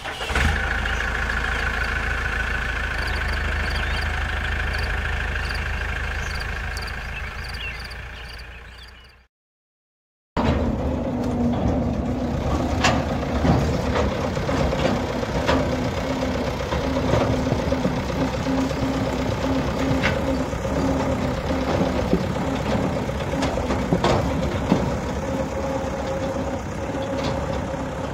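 A steady intro sound effect fades out over the first nine seconds and breaks off into a second of silence. Then a 2008 Fiat 640 diesel tractor's engine runs steadily as the tractor drives over grass towing a thresher, with occasional sharp clanks.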